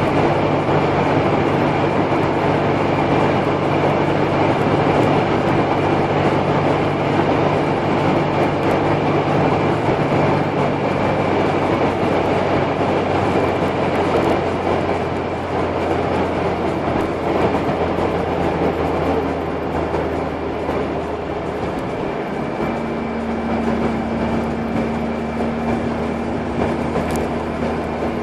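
Car driving along, heard from inside the cabin: steady engine and road noise, with the engine note shifting pitch twice.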